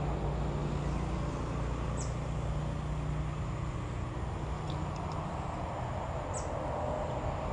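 Steady low rumble of distant road traffic, with two short high bird chirps, about two seconds in and again about six seconds in, and a few faint ticks around five seconds in.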